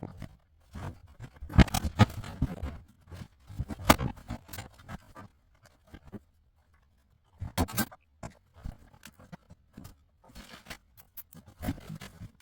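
Irregular knocks, clicks and scraping of objects being handled, with a pause about two-thirds of the way through.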